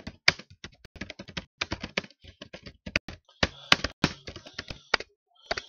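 Typing on a computer keyboard: a run of quick, irregular key clicks with a short break near the end.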